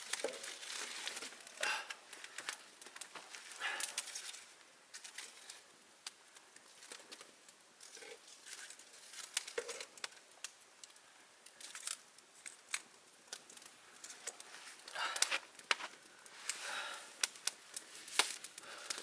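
Campfire crackling: wood burning with frequent sharp pops and snaps, and a few swells of rushing, hissing noise.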